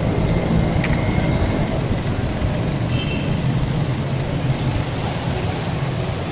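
A steady low mechanical rumble, like a motor running, with a few faint, short high squeaks.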